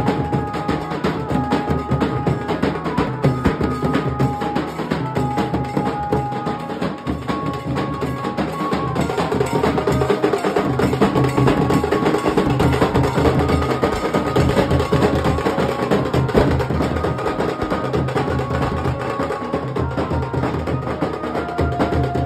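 A Nashik dhol ensemble playing: several large barrel dhol drums beaten fast with sticks, with brass cymbals, a dense, loud, continuous rhythm.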